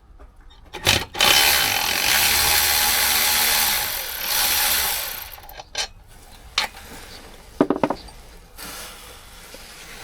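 Power tool running in one loud burst of about four seconds that fades out, with a sharp knock just before it and a few short knocks afterwards.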